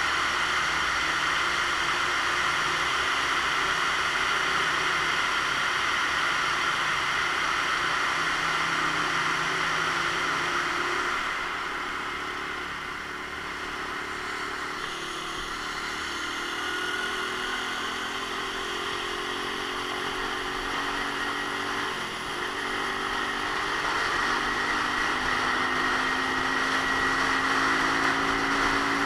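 Romet Ogar Caffe 125's 125 cc single-cylinder engine running under way, heard under a steady rush of wind and wet road noise. The rush eases a little about halfway through, and in the second half the engine note climbs and drops back in steps as the bike pulls through the gears.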